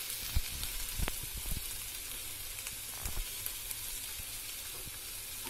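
Chicken strips sizzling in oil in a frying pan, their own juices already cooked off so they now fry dry, with a few faint clicks in the first few seconds.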